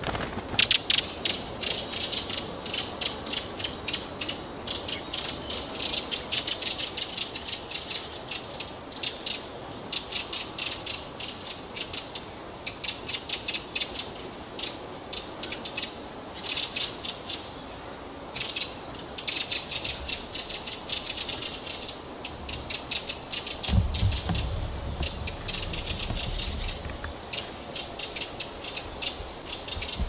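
Redwing's harsh rattling alarm call: fast runs of dry clicks, in bursts of a second or two repeated with short pauses.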